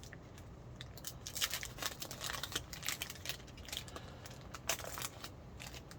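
Trading cards being flipped through by hand: irregular light clicks and snaps of card stock sliding and tapping against each other.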